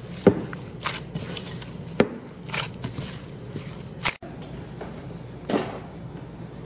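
A hand mixing and kneading rice flour dough in a glass bowl: irregular soft squishes and knocks against the bowl. The sound breaks off sharply about four seconds in, and one more soft knock comes later.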